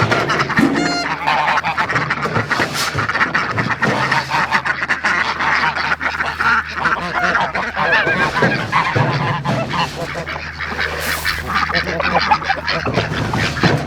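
A flock of domestic waterfowl calling all at once: a continuous, loud clamour of many overlapping quacks and honks.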